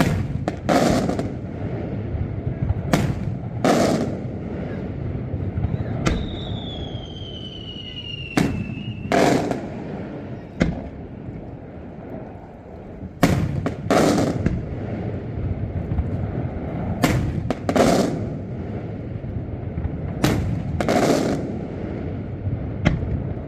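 Daylight aerial firework shells exploding in loud, sharp reports, mostly in pairs: a crack followed under a second later by a deeper boom, repeating every few seconds. About six seconds in, a whistle slides down in pitch for a couple of seconds.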